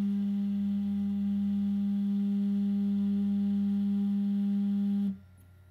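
ShopBot benchtop CNC router's Z-axis stepper motor whining at one steady pitch as the V-bit is lowered slowly toward the zeroing plate in the Z-zeroing routine. The whine cuts off suddenly about five seconds in, when the bit meets the plate.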